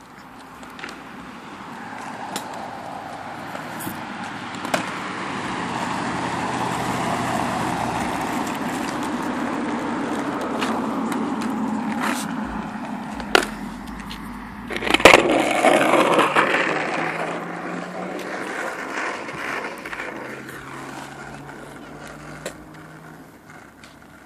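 Small hard wheels rolling on pavement, growing louder over several seconds, holding, then fading, with a few sharp clicks and a loud clatter about fifteen seconds in.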